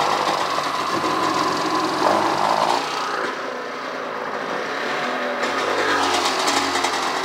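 1997 Sea-Doo GSI's Rotax 717/720 two-stroke twin engine running just after start-up. It goes a little quieter in the middle and picks back up towards the end.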